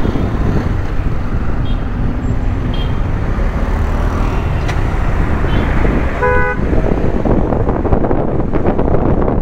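KTM 390 Duke's single-cylinder engine running with road and wind noise while riding in city traffic. A vehicle horn honks once, briefly, about six seconds in.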